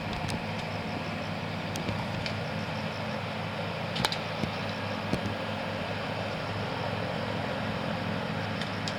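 Harbour cleaning boat's engine running steadily, with a few scattered sharp clicks and knocks, the loudest about four seconds in.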